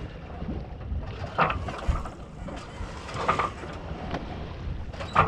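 A sailboat under way in light conditions: wind rumbling on the microphone and water moving along the hull, with three short knocks about two seconds apart.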